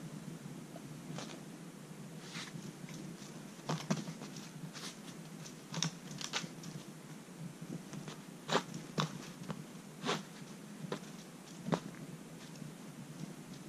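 Scattered light taps and scuffs on a tatami mat, irregular and faint: a cat-teaser wand flicked across the mat and a kitten batting at it with its paws.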